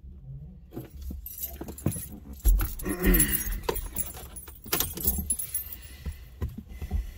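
Light metallic jingling and clinking as a dog climbs into the car's back seat, with a dull thump about two and a half seconds in.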